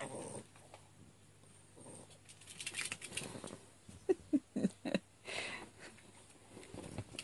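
A chihuahua pawing and rummaging in a fabric cushion, making scratchy rustling, with a few short squeaks about four to five seconds in.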